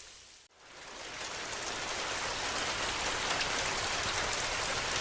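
Steady rain falling. It dips to near silence about half a second in, then swells back up over the next second and holds steady.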